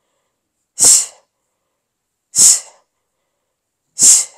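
A woman's sharp, hissing exhalations through the mouth, three of them about a second and a half apart, keeping time with the leg switches of a Pilates single leg stretch.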